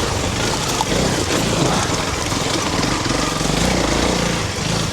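Honda CRF300 Rally's single-cylinder engine running steadily as the bike is ridden along a dirt trail, under a continuous noisy rush.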